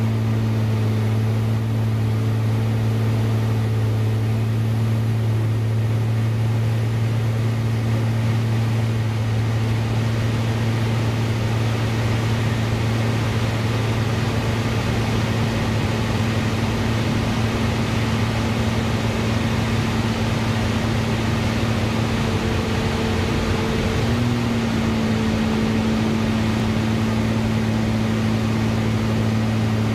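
Aerobatic plane's engine and propeller drone heard inside the cockpit: a steady low hum under a constant rush of noise, its pitch shifting slightly about two-thirds of the way through.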